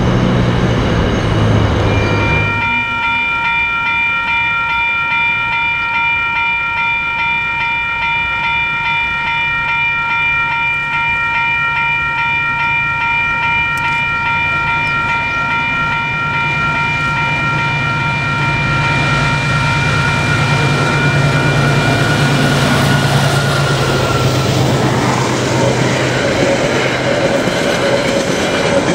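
Diesel-hauled freight train. Its wagons rumble over a bridge at first. Then a steady high ringing tone holds through most of the approach while the locomotive's engine drone grows louder. The wagons rumble and clatter past close by near the end.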